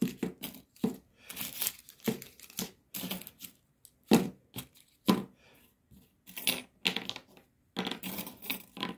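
Octal valve sockets and their metal retaining clips clicking and clattering as they are handled and laid out on a table, in irregular knocks a few times a second.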